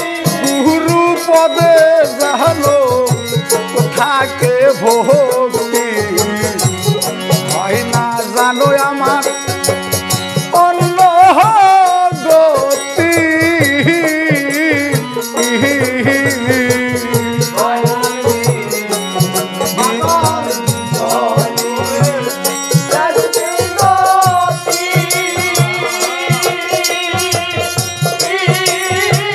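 Live Bengali folk song: voices singing over a harmonium's sustained reedy chords, a plucked dotara, a barrel drum keeping a steady beat and small hand cymbals jingling in time.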